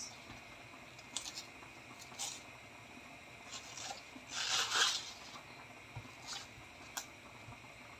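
An outer leaf being cut and peeled off a head of cabbage with a knife: soft crackling and a few light clicks, with a longer tearing rustle about halfway through as the leaf comes away.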